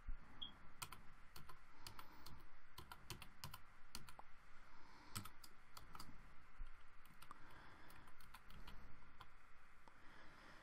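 Typing on a computer keyboard: a run of quiet, irregularly spaced key clicks.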